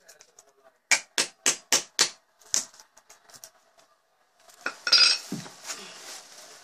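Hammer striking at a carpet tack strip on a concrete floor: a run of five quick blows about four a second, then one more. Near the end comes a louder metallic clatter that rings briefly.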